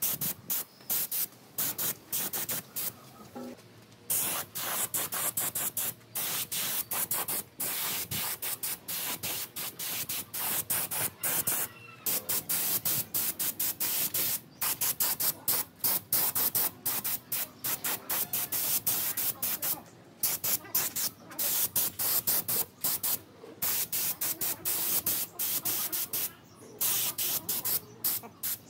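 Hissing spray in rapid short bursts, two or three a second, with brief breaks between them.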